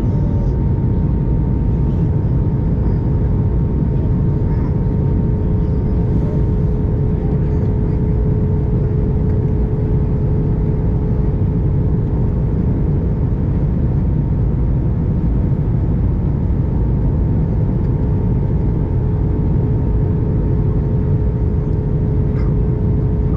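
Airbus A321 cabin noise in flight: a loud, steady low rumble of the jet engines and airflow with a constant hum.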